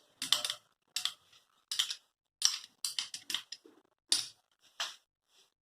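A spoon clinking and scraping against a cup of tulsi kadha as ghee is added and stirred in: a quick, irregular run of short sharp clicks, thinning out near the end.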